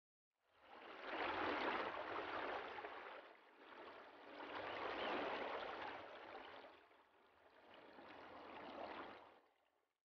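Rushing water, a steady hiss and rumble that swells and fades three times.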